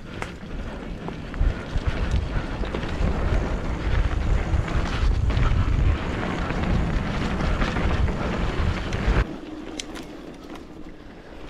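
Wind buffeting the microphone of a mountain-bike rider moving fast along a dirt trail, with scattered knocks from the bike. The rush builds about a second in and cuts off suddenly about nine seconds in.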